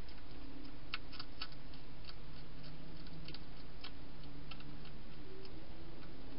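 Wild hedgehog crunching dry food inside a clear plastic feeding box: irregular sharp clicks, about three a second, over a steady hiss.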